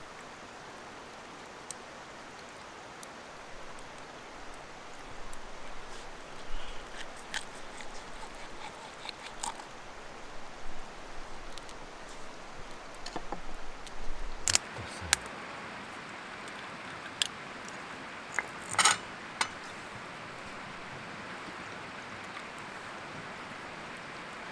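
Steady background hiss with a run of small, close clicks, knocks and rustles of something being handled, the sharpest few knocks coming between about two thirds and four fifths of the way through.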